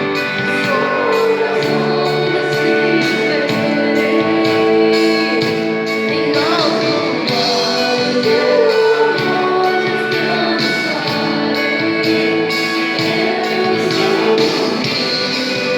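A worship band playing a slow song, with a sung melody over held chords and a steady beat.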